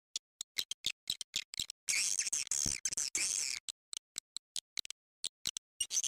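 Swiftlet call-sound recording, the lure played to draw swiftlets into a nesting house. A run of short, sharp clicks, then a high twittering chatter about two seconds in lasting under two seconds, then sparser clicks again.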